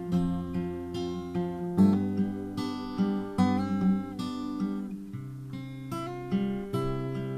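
Acoustic guitar playing a slow chord progression. Each chord is struck and left to ring, with a new chord every second or so.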